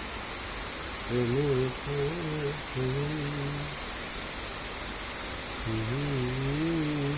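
A man's voice humming a melody in short wavering phrases, with a pause in the middle, over a steady hiss of rain.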